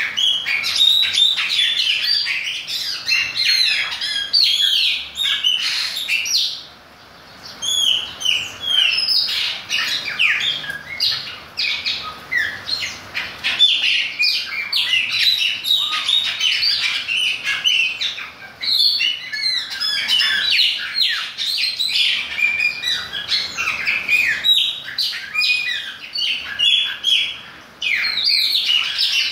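Chopi blackbird (Gnorimopsar chopi) singing: a fast, varied run of whistles and chirps, almost without a break, with a short pause about seven seconds in.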